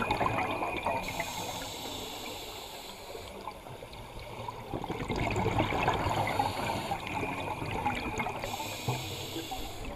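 Underwater, a scuba diver's exhaled bubbles rushing and gurgling past the camera. The bubbling fades about a third of the way in and swells again about halfway through.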